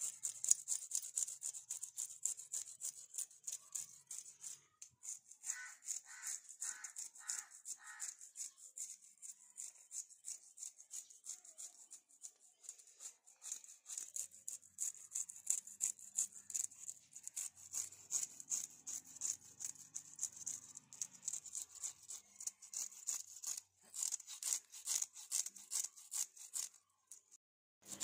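Knife blade scraping the scales off a large freshwater fish in quick, repeated strokes, pausing briefly near the end.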